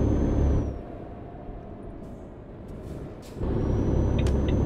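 Low engine and road rumble inside a moving vehicle. It drops sharply just under a second in and comes back loud about three and a half seconds in, with a faint high whine during the loud stretches.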